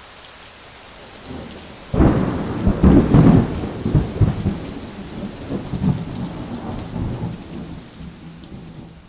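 A steady hiss, then a sudden loud crash about two seconds in that rumbles on and slowly dies away over several seconds: a sound effect for an animated ink-splash intro.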